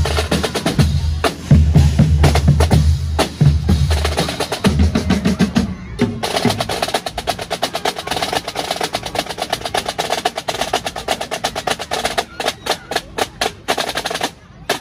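Carnival drum corps playing bass drums and rope-tensioned marching snare drums: a heavy pounding beat for the first five seconds or so, then, after a brief break, fast dense snare drumming that stops abruptly near the end.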